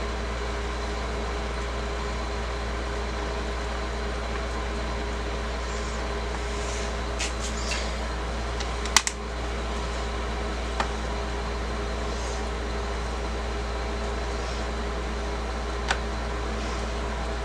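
Steady low mechanical hum, with a few light clicks of small screws being driven back into a laptop's plastic bottom panel. The clicks come scattered, the loudest about nine seconds in.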